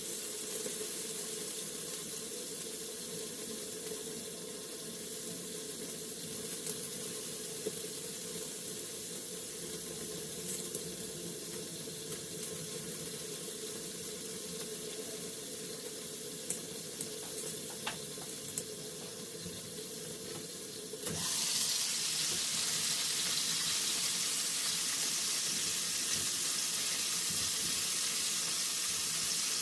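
Chicken wings frying in a pan, a steady watery bubbling sizzle with a few small pops. About 21 seconds in it suddenly turns louder and hissier.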